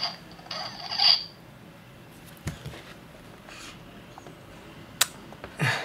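Electronic sound from a Famosa Bellies interactive talking doll: a short buzzy raspberry-like noise about half a second in. Then faint handling knocks and a sharp click near the end as one doll is picked up.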